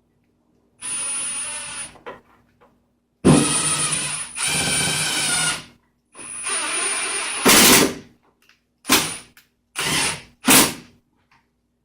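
Power drill driving screws: the motor runs in three longer spells of one to two seconds with a high whine, then gives four short blips near the end as the screws are run home.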